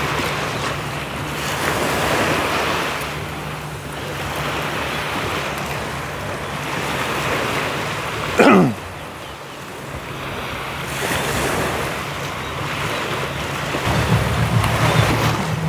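Waves washing onto a sandy beach, with gusts of wind buffeting the microphone. A single short, loud falling whistle-like sweep comes about eight and a half seconds in. A low pulsing bass grows louder near the end.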